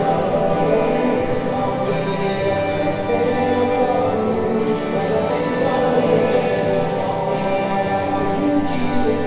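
A worship song playing: singing over an instrumental backing, with a steady beat.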